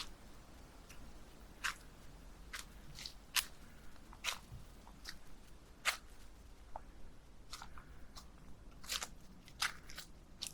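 Footsteps crunching on dry leaves and twigs: irregular sharp crackles, a dozen or more, coming about every half second.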